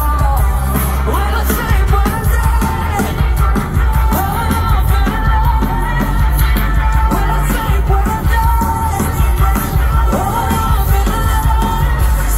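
Live rock band playing through large outdoor PA speakers, heard from within the crowd: a woman sings over drums and heavy bass.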